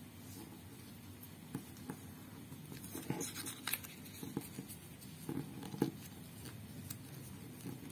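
Glossy origami paper being folded and creased by hand: soft crinkling with scattered short crackles as fingers press down and run along the folds, busiest about three seconds in and again between five and six seconds.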